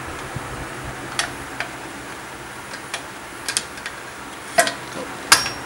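A pry bar clinking against the lower eye of a Bilstein 4600 shock absorber as the shock is levered off its mounting stud. The clinks are a handful of irregular, sharp metallic clicks, the loudest near the end.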